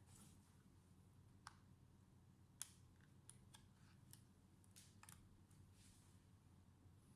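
Near silence: quiet room tone with a handful of faint, sharp, irregularly spaced clicks.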